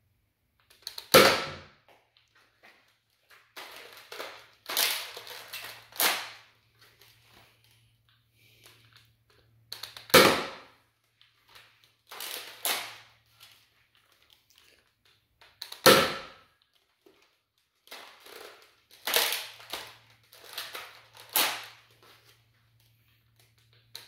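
A spring-upgraded Nerf Rival Roundhouse blaster fires three sharp shots, several seconds apart. Between the shots come softer clacks and scraping as its stiff, hard-to-prime spring mechanism is worked. The new spring makes it hit hard.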